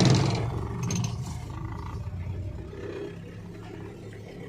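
Loud motor vehicle engine noise that dies away within the first second, leaving a low engine rumble that fades further over the next few seconds.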